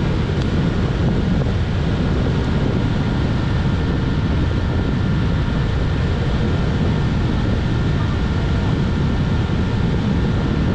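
Wind buffeting the microphone: a steady low rumble, with a few faint steady high tones above it.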